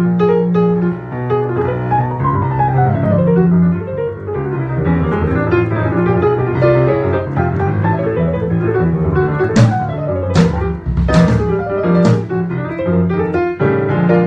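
Band playing jazz-funk: piano running quick scales up and down over low sustained bass notes, with four sharp drum hits in a row in the second half.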